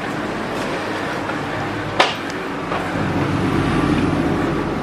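Train noise: a steady rumble with a single sharp knock about two seconds in, the low rumble swelling in the second half.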